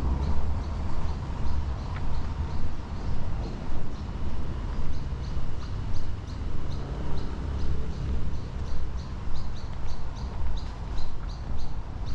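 Footsteps of a person walking at a steady pace, a little under two steps a second, with a bird chirping again and again in short high notes.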